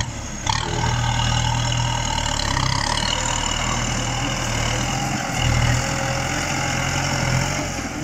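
Farm tractor's diesel engine running steadily under load as it pulls a disc plough through the soil, its note shifting slightly now and then.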